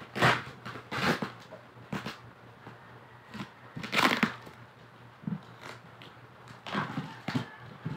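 Plastic parcel wrapping crinkling and tearing in short, irregular bursts as it is cut and pulled open, with the loudest bursts just after the start and about four seconds in.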